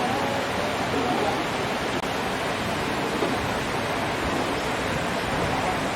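Steady rushing noise with no distinct events, like running or churning water.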